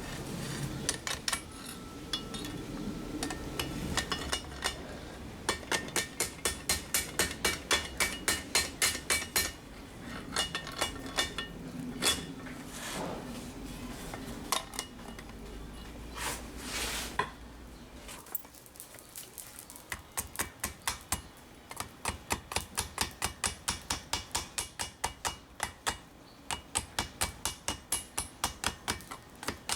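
Hammer striking a small piece of Damascus steel on an anvil in quick runs of evenly spaced forging blows, about three a second, each with a bright metallic ring. A low steady hum underneath stops about two-thirds of the way through.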